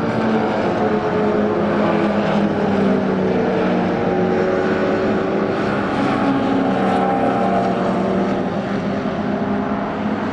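Several classic racing car engines running hard together, at different pitches that drift slightly up and down as the cars go by.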